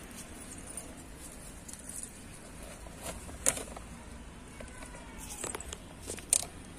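Green chilli plants handled by hand for picking: soft rustling with a few sharp snaps, two of them louder, about halfway and near the end.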